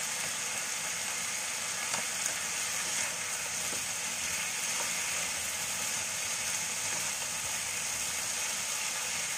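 Cubed potatoes sizzling steadily in hot mustard oil in a pan, with a wooden spatula stirring and scraping them now and then.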